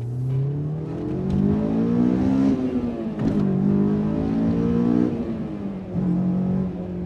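Honda S2000's 2.2-litre four-cylinder engine and Mugen cat-back exhaust, heard from inside the cabin, accelerating hard through the gears. The revs climb, fall at an upshift about three seconds in, climb again, and fall at a second shift about five seconds in.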